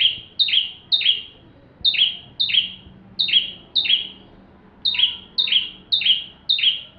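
Ciblek (prinia) calling persistently: sharp, high, downward-slurred chirps repeated about twice a second in runs of two to five, with short pauses between runs.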